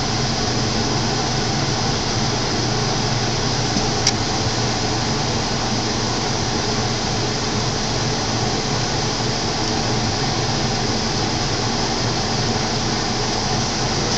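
Steady background hum and hiss of room noise, with one short click about four seconds in.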